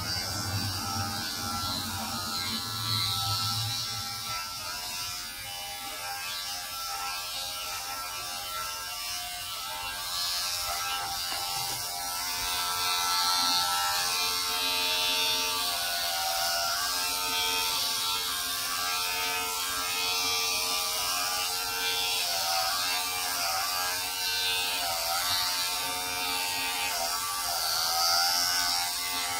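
Corded electric hair clipper buzzing steadily as it shaves a man's head; from about halfway its pitch dips and recovers again and again.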